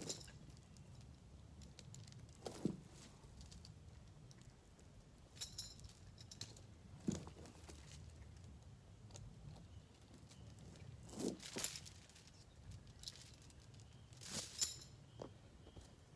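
Steel choker chain clinking and rattling in short scattered bursts as it is wrapped around a log, the loudest about eleven and fourteen seconds in.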